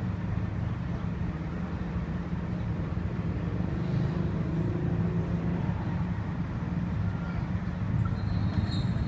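Diesel-electric locomotive idling nearby, a steady low drone.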